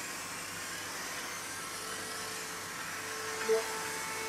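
Kyosho Mini-Z 1:28-scale electric RC cars racing on a carpet track: a steady whine of their small electric motors, with a second steady tone joining about three seconds in.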